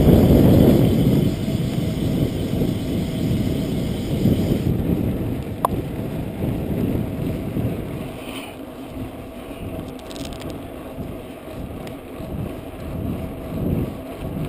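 Wind buffeting a chest-mounted GoPro's microphone on a moving bicycle, with the rumble of tyres on asphalt. It is loudest about the first second, then eases and comes and goes in gusts. There is a single sharp click about six seconds in.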